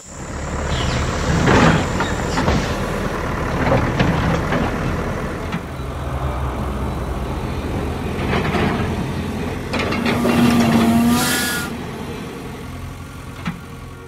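Heavy engine rumble, as of trucks and machinery, swelling several times, with a sharp hiss and a brief falling tone near the end.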